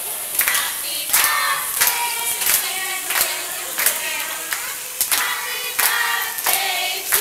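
A group of adults and children singing together to steady hand clapping, about three claps every two seconds.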